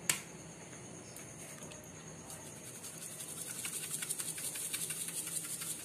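Peri peri seasoning shaken from a shaker container over chicken in a steel bowl: a click at the start, then from about two seconds in a run of rapid light ticks and patter as the granules rattle out and fall.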